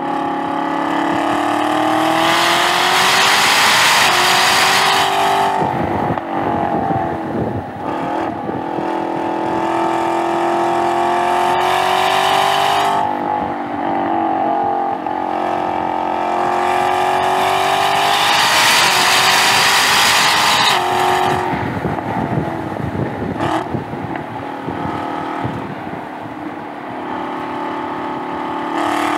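The supercharged 6.2-litre V8 of a Chevrolet Camaro ZL1 1LE, heard onboard at full throttle on track, its pitch climbing as it revs up, then falling away as the driver lifts for corners, several times over.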